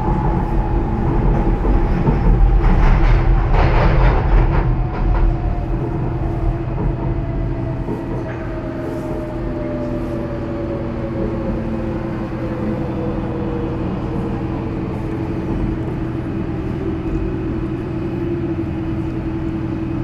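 Docklands Light Railway train heard from inside the carriage: rumble and rail noise, with the traction motor whine falling slowly and steadily in pitch as the train slows into a station, then levelling off near the end.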